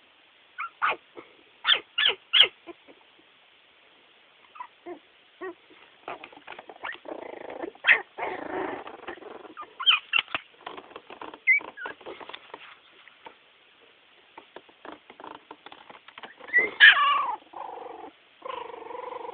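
Chiweenie and Miniature Pinscher puppies whimpering and squeaking in short high yips, with a stretch of shuffling about halfway through and longer whining cries near the end.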